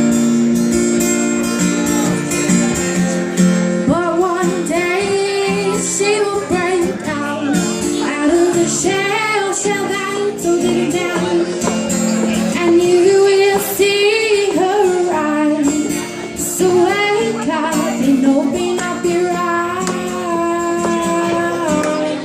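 Live pop song: a woman singing over guitar accompaniment. The guitar plays alone for about the first four seconds before the voice comes in and carries on through the rest.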